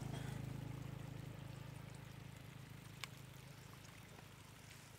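Faint trickle of shallow floodwater over muddy ground, under a low rumble that fades away over the first two seconds, with a single sharp click about three seconds in.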